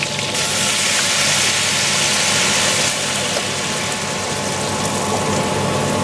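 Wine poured into a hot frying pan of browned rabbit pieces, hissing and sizzling loudly as it hits the hot fat. The hiss starts suddenly about half a second in, is strongest for the first couple of seconds, then settles to a steadier simmering sizzle.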